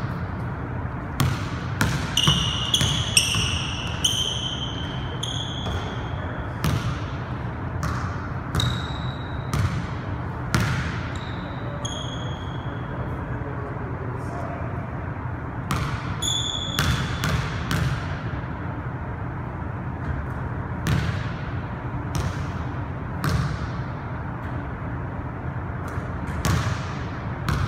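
Basketball bouncing on a hardwood gym floor: irregular thuds a second or two apart, echoing in the hall, with a pause around the middle. Sneakers squeak on the court in short high chirps, mostly in the first few seconds and again in the middle, over a steady low hum.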